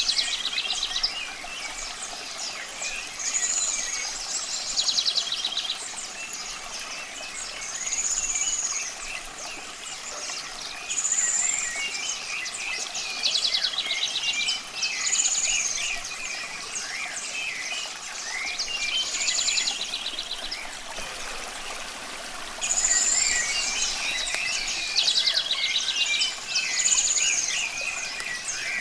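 Birds singing over a steady rush of running water: one bird repeats a high song phrase with a fast trill every two or three seconds, among many short chirps.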